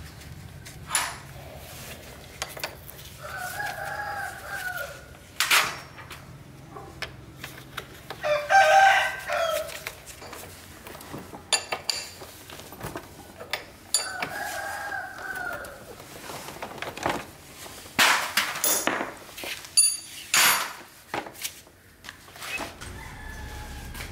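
A rooster crowing twice, about ten seconds apart, with a shorter, louder call between the crows. Sharp knocks and clinks are scattered throughout.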